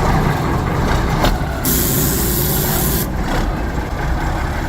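Heavy diesel truck engine running, with a loud hiss of compressed air lasting about a second and a half, starting about one and a half seconds in: the truck's air brakes releasing.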